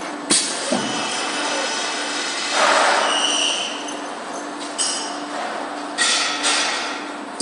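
Double-knife CNC wood lathe turning a wooden spindle: a steady run of machine and cutting noise with several sharp cracks, a louder swell of cutting about two and a half seconds in, and brief high squeals.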